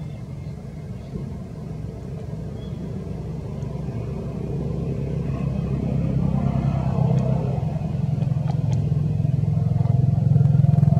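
Low, steady rumble of a motor vehicle engine, growing gradually louder.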